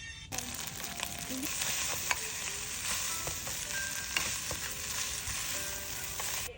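Food frying in hot oil: a steady sizzle that starts a moment in and cuts off abruptly near the end.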